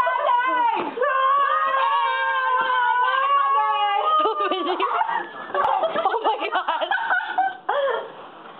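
Girls laughing and squealing. About a second in, one voice holds a long high squeal for about three seconds, then it breaks into overlapping laughter and shouts.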